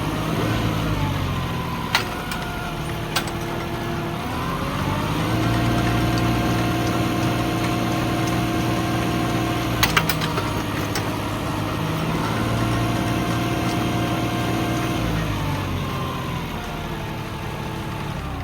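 Tractor engine running, revving up to a higher steady speed about five seconds in and dropping back down near the end. A few sharp knocks come through during the run.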